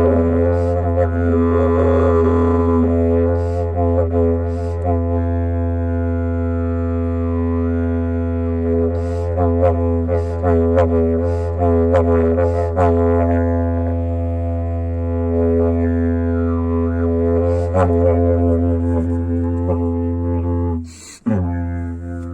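Didgeridoo played as a continuous low drone, its overtones sweeping up and down, with sharp rhythmic accents scattered through. The drone breaks off briefly near the end and comes back in quieter.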